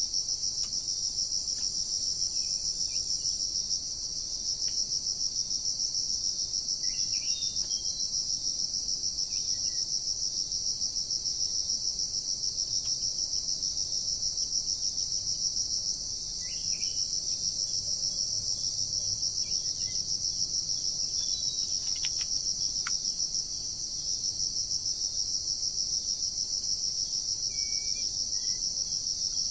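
Dense, steady insect chorus: a loud high-pitched trill that drops briefly three times. Faint short bird chirps come through here and there.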